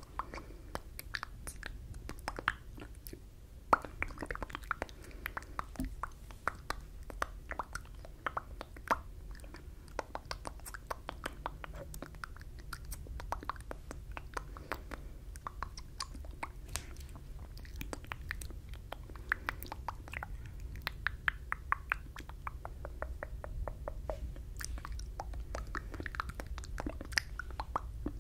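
Close-up mouth sounds from silent mouthing of words (the ASMR 'fishbowl effect'): a steady stream of wet clicks, lip smacks and tongue pops, with no voiced words, over a low steady hum.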